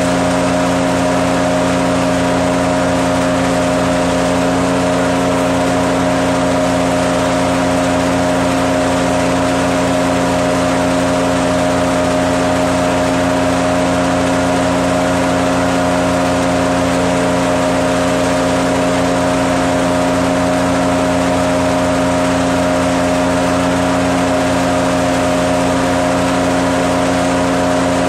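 Garden wood chipper running steadily, a constant mechanical hum that holds the same pitch throughout with no change in load.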